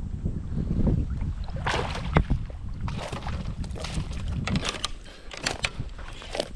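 A small northern pike splashing and thrashing at the water's surface beside a kayak as it is reeled in, a run of quick, irregular splashes starting about two seconds in, over a steady low rumble.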